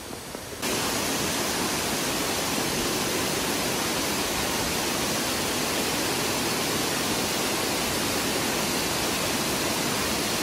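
Steady roar of a waterfall's falling water, cutting in abruptly about half a second in and holding even throughout.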